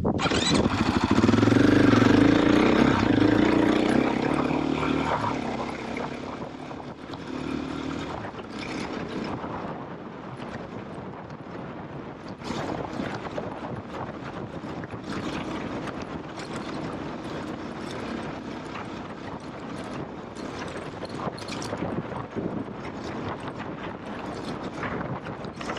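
KTM off-road motorcycle engine running, loudest for the first few seconds and then settling to a lower, steadier run with scattered rattles and bumps.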